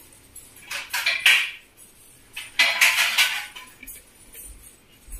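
Kitchen utensils being handled off camera, clinking and clattering in two short bouts: one about a second in and one around three seconds in.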